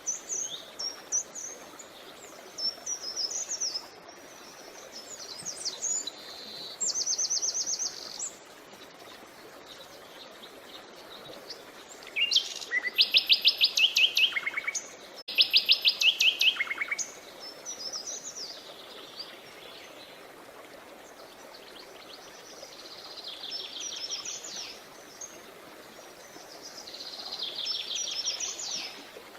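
Wild birds chirping and trilling, several calls overlapping. About halfway through come the loudest bouts: fast trills of rapidly repeated notes. A faint steady hiss sits beneath.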